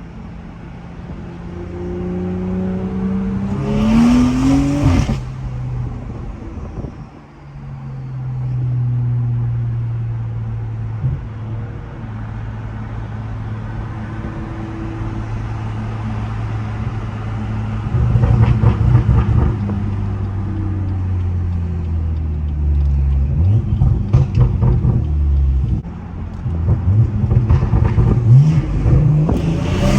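BMW 440i's B58 turbocharged straight-six, fitted with a catless downpipe, heard on the move. It rises in revs for a few seconds and drops, then runs at a steady drone. From a little past halfway it crackles irregularly, and it revs up again near the end.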